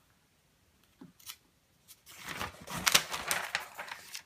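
Brisk, uneven rubbing as handwritten marker working is wiped off a whiteboard. It starts about two seconds in, after a couple of faint taps.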